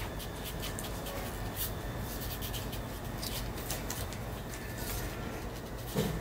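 Short, dry scratching and rustling of newborn kittens and their mother cat moving on the floor of a cardboard box, over a steady low hum, with one brief louder low sound near the end.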